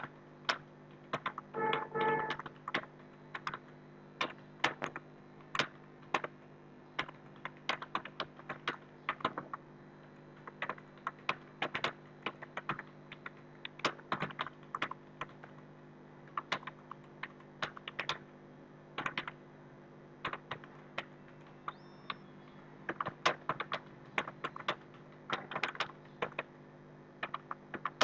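Rapid, irregular keystrokes on a computer keyboard during a timed typing test, several key clicks a second, over a steady low hum.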